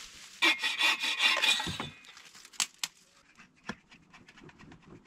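Bow saw cutting through a dead branch for firewood, quick back-and-forth strokes that stop about two seconds in. After that, a few sharp clicks.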